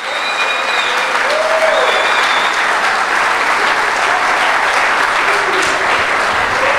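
Church congregation applauding steadily, with a few voices calling out over the clapping.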